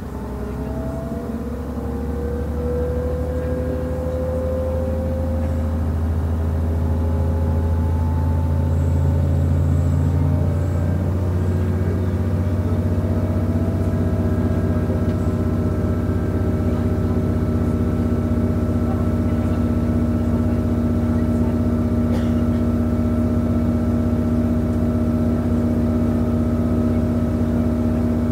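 MTU 12V183 TD13 V12 diesel engine of a DB class 628.4 railcar pulling, heard from inside the train. The engine note rises and grows louder as the railcar gathers speed, changes about ten seconds in, and then runs at a steady pitch.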